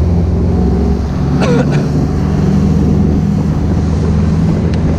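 Boat motor running steadily at speed, a loud, even low hum.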